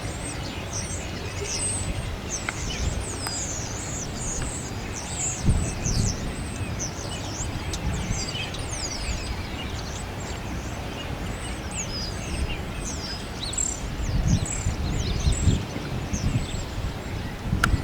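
A flock of small birds chirping and twittering, many short high-pitched calls overlapping almost without a break, over a low rumbling noise that swells about six seconds in and again near the end.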